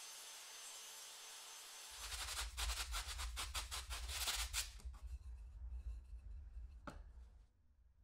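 Steady hiss, then about two seconds in a quick run of rasping strokes, roughly five a second, of a hand tool worked against wood. A single sharp knock comes near seven seconds.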